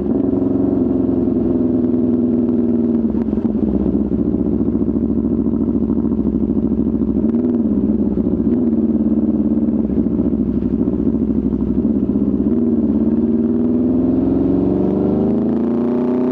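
Aprilia RSV4 RR's V4 engine, breathing through an aftermarket Austin Racing exhaust, running at a steady low speed with a couple of brief wavers in pitch, then revving up near the end.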